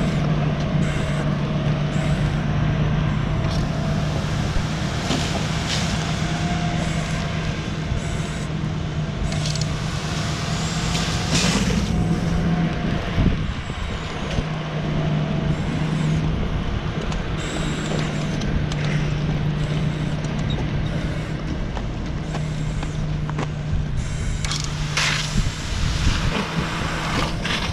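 Fire engine running steadily to pump a charged hose line, a constant low hum, with short hissing bursts now and then from a firefighter's SCBA air regulator.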